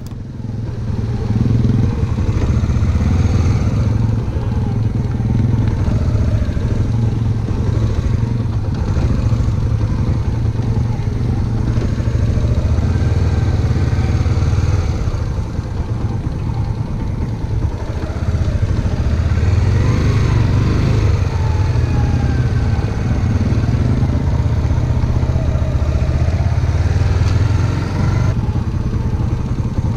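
Suzuki GZ250's single-cylinder engine running at low speed through practice manoeuvres, heard from a camera on the bike; the pitch rises and falls with the throttle, and the sound eases off briefly twice.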